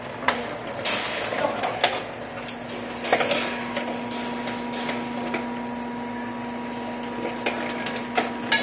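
Irregular light clicks and clatters of a small plastic ball being batted by a kitten around a wire cage, over a steady low hum.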